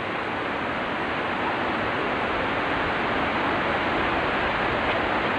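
Horseshoe Falls at Niagara: the steady rush of the falling water, an even, unbroken noise.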